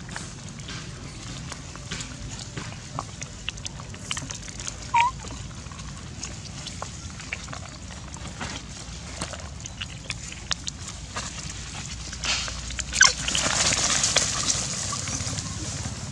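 Long-tailed macaques crowding around a feeding hand, making scattered small clicks and rustles, with one short high squeak about five seconds in. A louder burst of rustling comes near the end.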